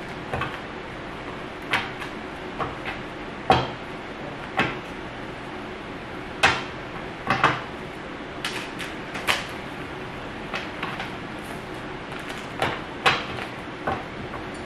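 Tarot deck being shuffled by hand: irregular sharp card snaps and taps, one or two a second, over a steady background hum.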